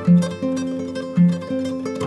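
Background instrumental music: a plucked-string tune over held lower notes.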